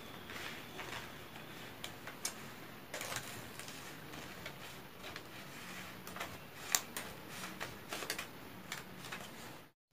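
Scissors snipping through a stiff paper pattern and the cut paper pieces rustling as they are handled, in irregular sharp clicks and crinkles, the loudest click about two-thirds of the way in.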